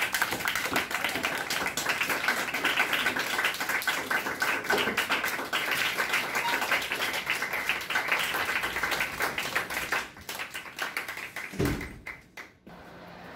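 A roomful of students clapping, a dense applause that thins to scattered claps after about ten seconds. A short dull thump sounds near the end.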